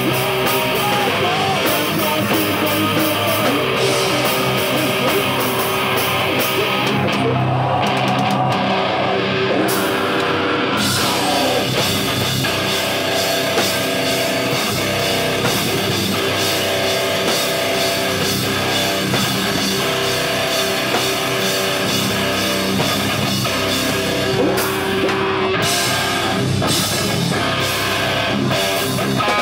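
A metalcore band playing live and loud, with distorted electric guitars and a drum kit pounding along.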